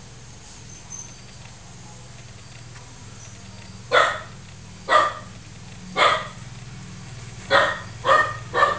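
A dog barking: six short barks from about four seconds in, the first three about a second apart and the last three in quicker succession, over a steady low hum.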